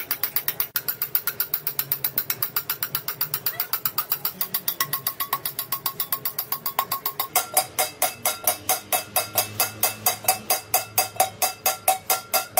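Copper pot being hand-hammered: a rapid, steady run of light hammer blows on the copper, raising a dimpled finish. About seven seconds in, the blows become louder and a little slower, each one ringing with a metallic tone.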